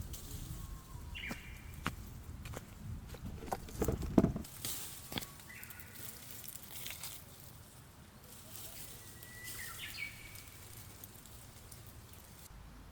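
Rustling with scattered clicks and snaps, as of leaves and branches being handled, and a few short, high bird chirps. A low rumble runs under the first four seconds.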